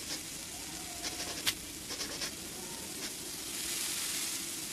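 Cartoon sizzle effect of a lizard's hand on a hot rock: a steady hiss that grows louder about three and a half seconds in, with a few light taps before it.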